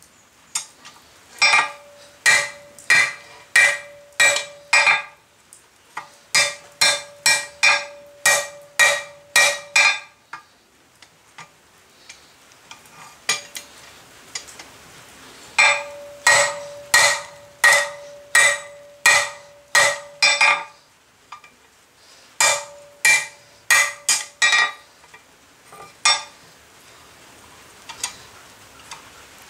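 Hand hammer striking a red-hot steel tong rein on an anvil's edge, drawing out the bar. The blows come in four runs of quick, evenly spaced ringing strikes with short pauses between, and a few single taps near the end.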